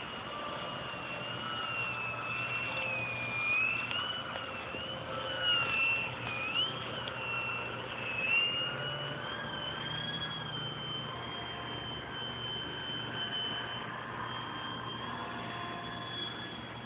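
Electric motor and 9x4.7 propeller of a Twisted Hobbies foam RC plane in flight, a high whine that rises and falls in pitch over and over. It has a few short louder swells between about five and nine seconds in.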